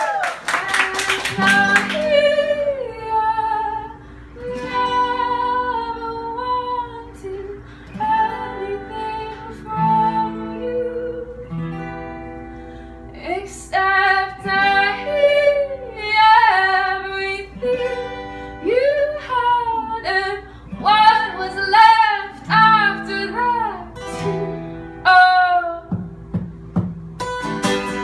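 A woman singing live, accompanied by a strummed acoustic guitar, in phrases that rise and fall with short breaths between them.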